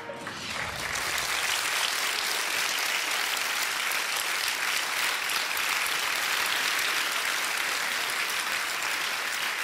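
Studio audience applauding: many hands clapping, building up over the first second and then holding steady.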